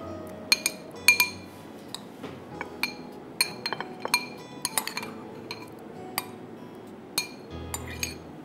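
Spoon clinking against a ceramic serving bowl and a glass trifle bowl while fruit cocktail is scooped and spread: over a dozen sharp, irregular clinks, each with a brief ring.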